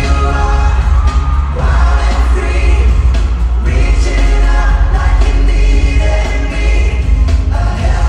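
Male pop vocal group singing live over a loud pop band backing with a heavy, constant bass.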